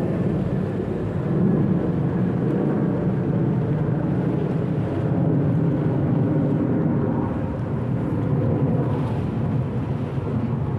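Steady, loud low rumble with no distinct events.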